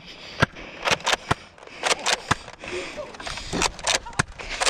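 Irregular knocks and clatters, a few a second, from someone running across a grassy yard with a camera in hand: footfalls and the gear jostling, with breathing heard between them.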